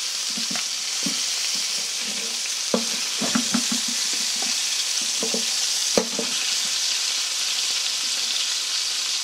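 Crucian carp frying in hot oil in a pan, a steady sizzle. Through the first six seconds or so there are a few short knocks and scrapes of a utensil against the pan as the fish are turned over.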